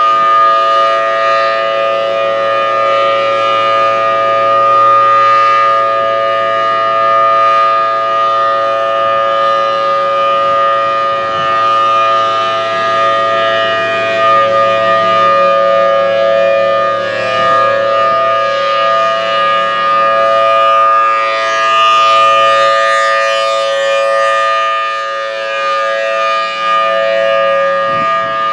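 Federal Signal Thunderbolt 1000T outdoor warning siren sounding a loud, steady tone during a test, its pitch held level with slight swells and dips in loudness.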